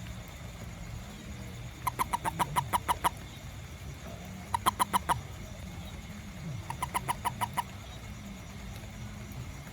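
An animal calling in short bursts of rapid, evenly spaced notes, about six to nine notes per burst, three bursts a couple of seconds apart, over a steady low hum.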